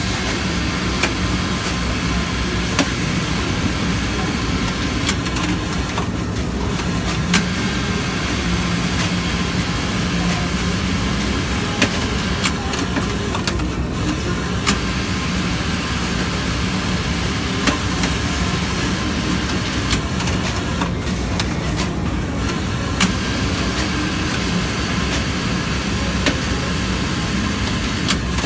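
Industrial automatic pocket-flap sewing machine running: a loud, steady, fast stitching noise over a hum, with sharp clicks every second or two. A few times the high stitching noise drops out briefly.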